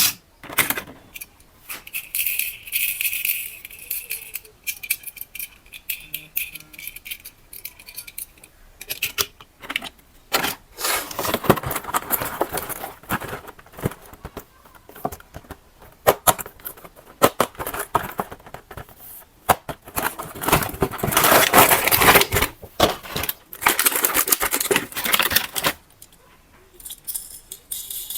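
Handling noise from unboxing: packaging and small plastic parts rustling, crinkling and rattling in irregular bursts, with a brief thin high whine about two seconds in.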